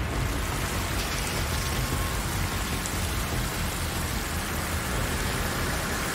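Water hissing and rushing steadily from a burst circulation pipe into a flooding boat bilge, over a low engine-room rumble.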